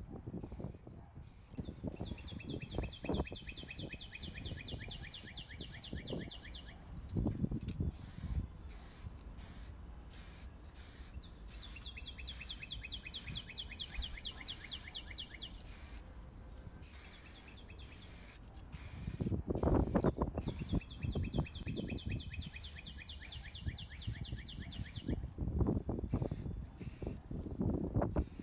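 Aerosol spray paint can hissing in many short bursts as black paint goes onto a small plastic model truck body. A bird sings a fast trill three times in the background, and a few low bumps of handling come through.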